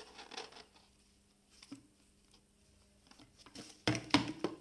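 Coins rattling inside a homemade piggy bank made from a recycled bottle: handling rustle at the start, then a quick run of loud clacks as it is shaken near the end.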